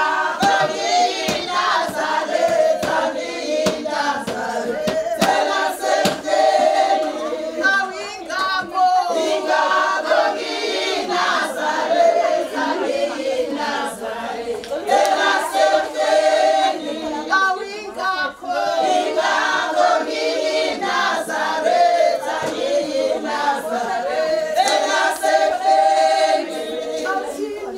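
A choir of many voices singing together in chorus, with sharp knocks or claps now and then.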